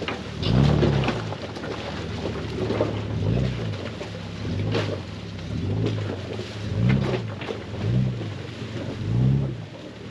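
Off-road vehicle's engine revved in short throttle bursts, rising and falling in pitch about once a second, as it crawls over rocks. Sharp knocks are heard now and then.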